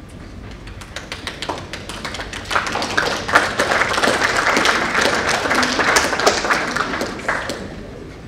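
Audience applauding: scattered claps about a second in swell into full applause, then die away near the end.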